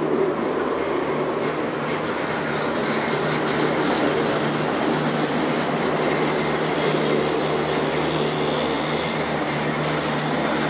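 Airbus A310-308 airliner landing: its turbofan engines make a loud, steady rush with a high whine as it touches down and rolls out.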